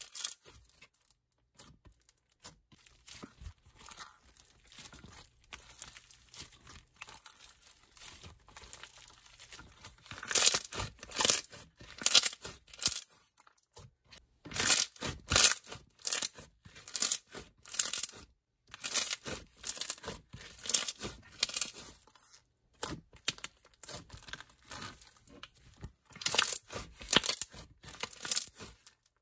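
Semi-floam slime being squeezed and stretched by hand, its foam beads giving irregular crunchy crackling. The crackling is faint for the first several seconds and comes in louder bursts from about ten seconds in.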